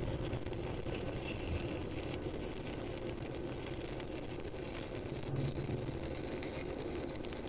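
Stick-welding arc from a Weweld ARC 275 LCD inverter welder burning a 3.2 mm electrode: a steady crackling sizzle as the rod burns off.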